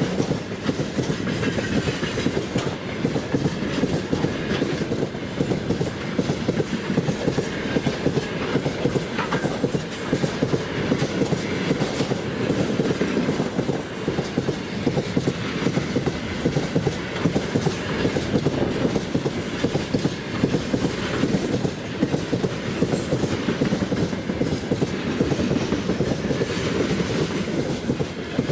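Loaded freight train rolling steadily past, its wheels clattering rapidly over the rail joints in a continuous rumble.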